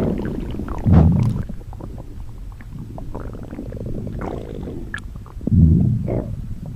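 Cartoon stomach growl: two loud, low rumbles, one about a second in and another about four and a half seconds later, with fainter gurgles between them.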